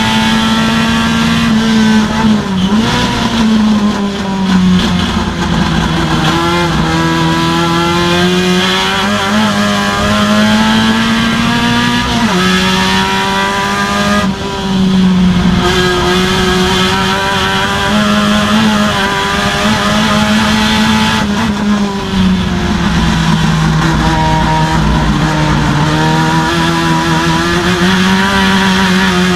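Race car engine running hard at high revs, heard from inside the cockpit. Its pitch sags slowly in places, jumps back up sharply about twelve seconds in, and dips and recovers again later through the corners and gear changes.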